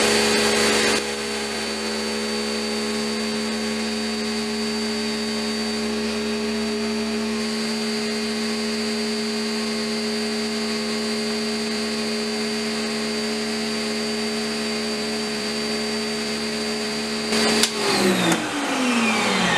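Karcher K1700 Cube electric pressure washer running steadily at full flow, spraying through a 3.0 orifice nozzle into a bucket: a steady motor hum and whine over the hiss of the water. Near the end a couple of clicks come, and the motor starts to wind down, its pitch falling.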